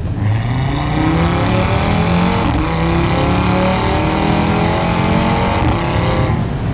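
Audi RS3 8V's turbocharged 2.5-litre five-cylinder engine accelerating hard under heavy throttle, rising in pitch for about six seconds, then easing off. The exhaust flaps are open below 4,500 rpm because the pedal is pushed past 80%, so the full exhaust sound comes through.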